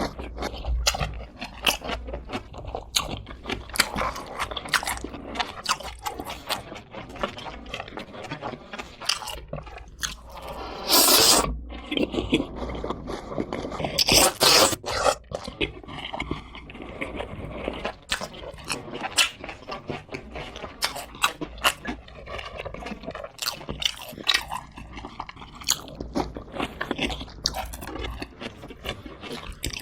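Close-miked crunching and chewing of crispy fried chicken, bite after crisp bite. Two louder, longer crackly noises come about 11 and 14 seconds in.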